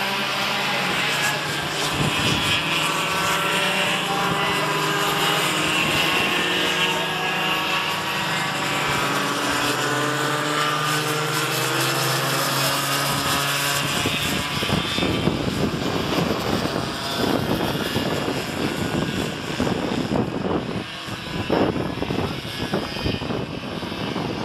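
Small two-stroke cadet kart engines racing on the track, their pitch rising and falling as the karts accelerate and brake through the corners. About halfway through, the clear engine note gives way to a rougher, noisier sound.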